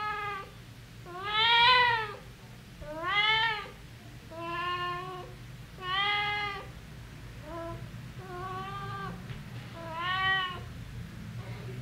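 Domestic cat meowing eight times in a row, each meow short and arching up then down in pitch, spaced about a second and a half apart, over a low steady hum.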